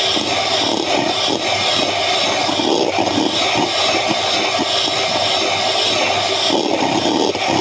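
Electric hand mixer running steadily, its twin beaters whipping cream in a stainless steel bowl.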